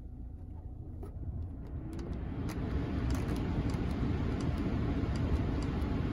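2021 Cadillac XT5's climate-control blower fan spinning up, just switched on: the rush of air from the vents grows louder from about a second and a half in and holds steady from about three seconds in. A few light clicks of the touch controls sound over it.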